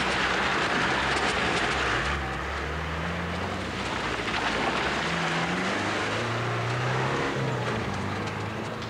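Military Land Rover driving off on a gravel track: the engine runs with its note rising and falling several times, and a rush of tyre noise over the gravel is strongest in the first two seconds.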